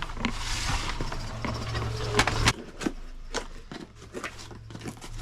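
A string of sharp clicks and knocks from handling things, over a low hum that stops about two and a half seconds in.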